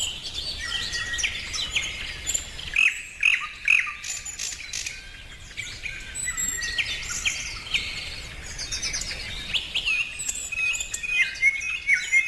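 Several birds chirping and singing at once: many short, overlapping chirps, trills and whistles at different pitches.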